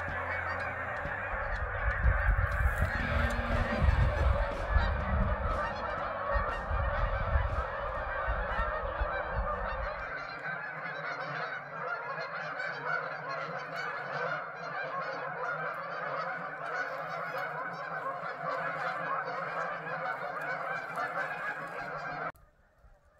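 A large flock of geese honking all at once, a dense steady chorus of overlapping calls that cuts off suddenly near the end. A low rumble sits under it for the first half.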